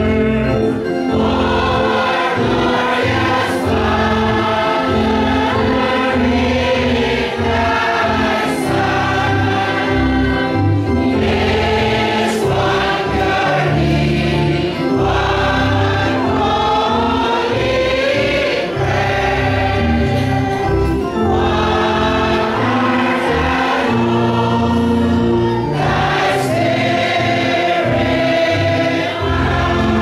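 A church youth choir singing a gospel song, many voices together over a low bass line of accompaniment.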